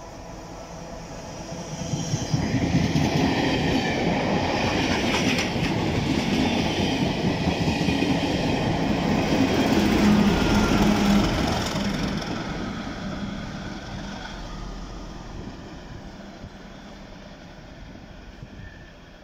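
Class 37 diesel locomotive hauling a test train past: engine and wheel-on-rail noise build as it approaches, are loudest as it passes about ten seconds in, then fade steadily away.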